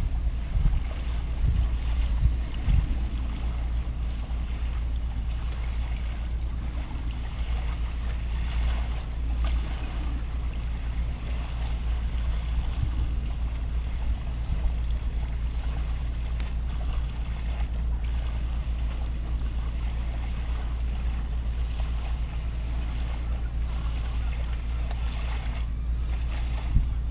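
Wind buffeting the camera microphone as a steady low rumble, with gustier bumps in the first few seconds, over an even hiss of wind and water.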